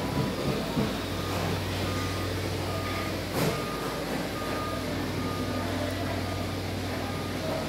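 Steady electric hum of the blower fans that keep the inflatable Halloween decorations up. Over it, a short electronic beep repeats at one pitch a little more than once a second, and there is a single sharp click about three and a half seconds in.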